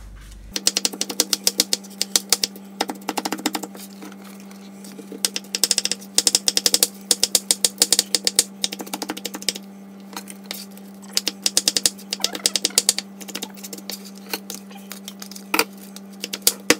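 Kitchen knife rapidly mincing thawed champignon mushrooms on a plastic cutting board: quick runs of sharp chopping strokes against the board, broken by a few short pauses.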